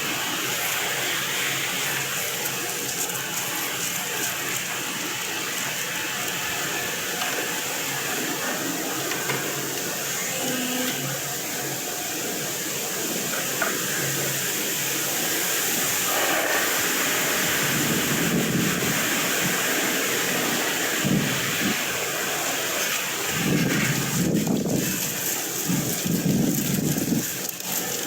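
Wind buffeting the microphone: a steady hiss with low rumbling gusts that build in the second half, loudest near the end.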